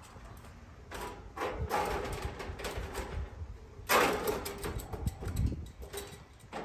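Sheet-metal top grille of an AC condensing unit, with its fan attached, being shifted and propped open against the cabinet: irregular metal scraping and rattling, loudest about four seconds in.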